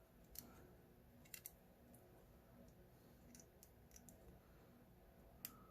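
Faint, scattered clicks of a small metal tool working inside an ACE solid steel body padlock while gutting it, trying to hook and pry out a stubborn part. About seven light ticks at uneven intervals, the sharpest near the end.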